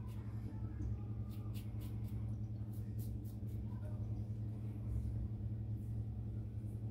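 A few short scrapes of a Karve stainless steel safety razor cutting stubble, grouped about a second in and fainter after, over a steady low hum.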